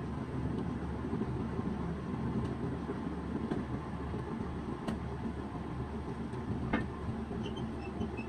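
Steady low rumble, with a few faint ticks and light scraping as a pointed tool carves leaf patterns into a leather-hard clay water cooler.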